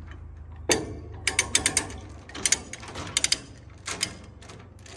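Quick clusters of sharp metallic ratcheting clicks, typical of a ratchet tie-down being worked to release the load on an equipment trailer, over a low steady hum.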